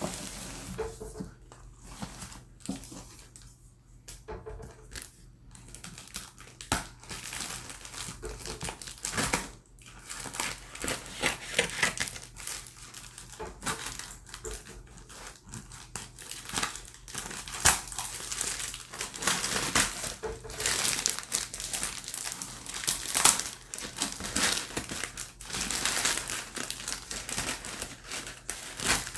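Parcel packaging being handled, crinkled and torn open by hand, in an irregular run of rustles and crackles that gets busier and louder after about six seconds.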